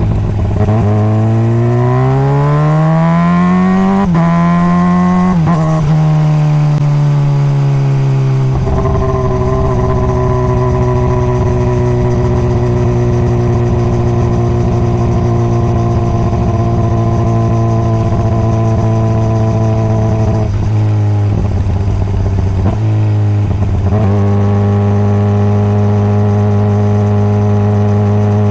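Honda CBR600RR's inline-four engine accelerating, its pitch climbing and dropping back at two quick upshifts in the first several seconds. It then holds a long steady cruising note, broken briefly twice near the end before settling again.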